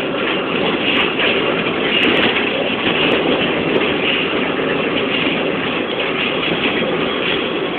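Inside a moving BMC 220 SLF low-floor city bus: steady engine and road noise, heard from the passenger cabin, as it drives over a rough road.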